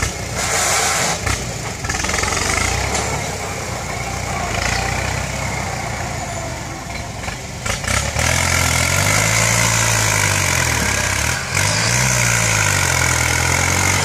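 Kubota tractor's diesel engine running under load as its front dozer blade pushes soil. The engine note rises and falls twice in the second half.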